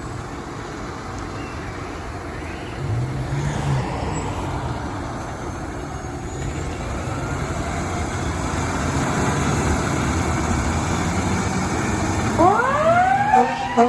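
Fire truck's engine running, slowly growing louder. About a second and a half before the end, a siren starts winding up, rising steeply in pitch.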